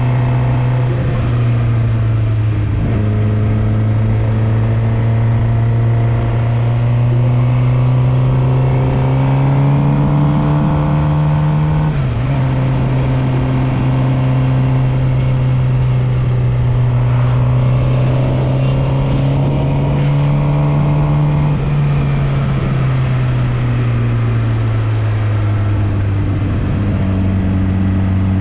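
Suzuki GSX-R750 inline-four engine running under way, heard from on board the motorcycle. Its pitch rises and falls slowly with the throttle, with a brief dip about twelve seconds in.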